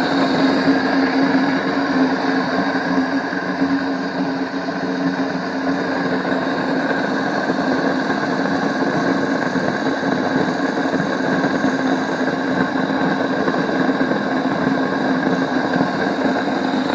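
Salzburg Amadea electric stone grain mill running steadily, its motor humming as the stones grind grain.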